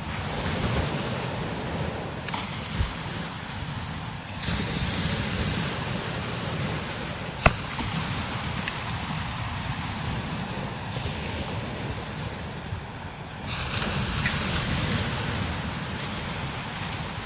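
Strong desert wind blowing in gusts over the dunes: a steady low rumble, with a hiss that rises in several surges and falls back between them. A single sharp click about seven and a half seconds in.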